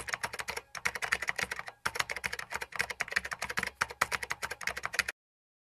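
Rapid keyboard typing, many sharp keystroke clicks a second with brief breaks, keeping time with text being typed out letter by letter; it cuts off suddenly about five seconds in.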